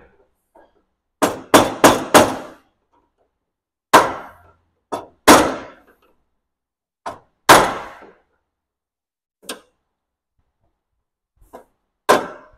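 Hammer blows ringing on the metal of a BMW E30's front fender and its mount, struck irregularly with a quick run of four early on and single blows after. Each blow is sharp with a short metallic ring. The fender is being chipped and forced free where it has been welded on instead of bolted.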